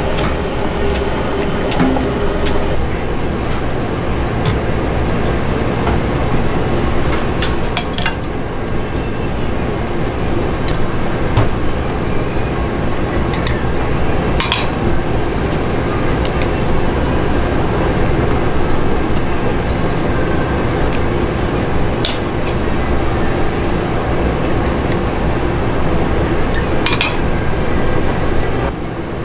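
Busy kitchen noise: a steady low hum with scattered sharp clinks of dishes and utensils.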